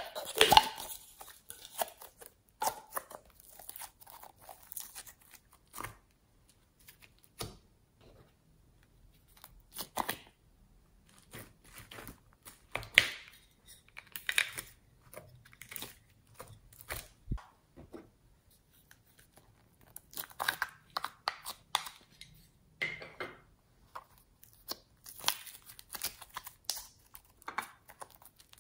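Glossy slime being squeezed out of a plastic bottle and pressed between the fingers, making spells of quick little sticky clicks and pops with quiet gaps between them.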